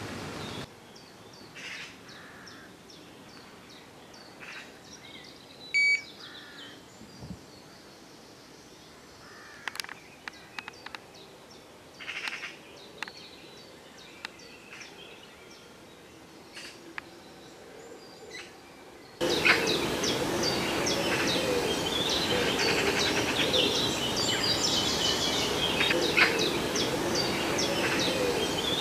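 Wild birds calling and singing: scattered short chirps for the first two-thirds, then a sudden switch to a much louder, dense chorus of birdsong.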